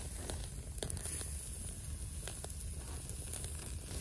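Charcoal fire flaring under a wire grill grate with beef grilling on it: a steady crackle with a few sharp pops scattered through, over a low rumble.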